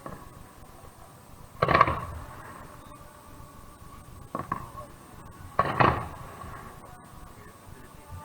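Fireworks bursting: three booms that each ring out and die away, the loudest about two seconds in and near six seconds, with a smaller one between.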